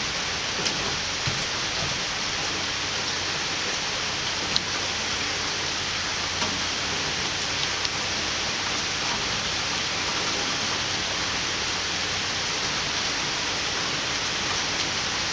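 Steady rain falling on a wooden deck and clay pots, with a few sharper single drops ticking close by now and then; the clearest comes about four and a half seconds in.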